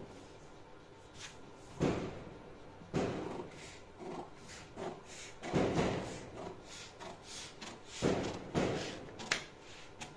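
Handling noise on a cutting table as a cut paper-pattern panel and tools are moved about: irregular knocks and thumps, about six sharper ones, with rustling between.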